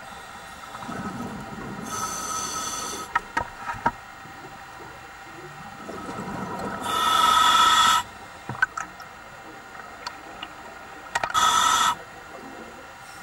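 Scuba diver breathing through a demand regulator underwater: three loud hissing breaths about four to five seconds apart, the middle one the loudest, with a low bubbling rumble and a few sharp clicks between them.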